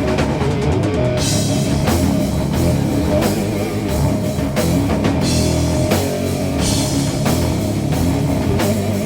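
Doom metal band playing an instrumental passage: distorted electric guitars and bass over a drum kit, with several cymbal crashes.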